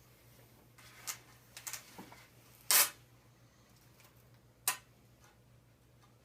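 Hockey tape and stick being handled while taping the knob: a few brief rustles and scrapes, the loudest a short rip-like burst near three seconds in.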